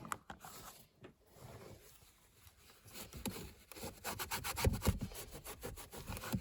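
Cloth wiping and rubbing over interior surfaces with glass cleaner: a few light scuffs at first, then quick back-and-forth strokes through the second half.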